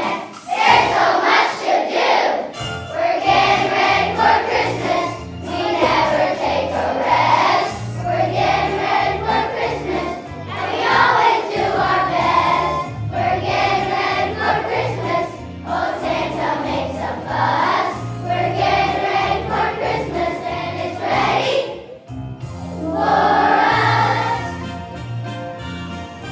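A choir of children singing a Christmas song over instrumental accompaniment with a steady, stepping bass line. The music dips briefly about 22 seconds in, then carries on.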